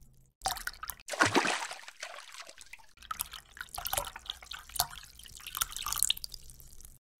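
Water splashing and dripping in aquarium fish tanks, in irregular spurts with a louder gush about a second in, over a faint steady low hum.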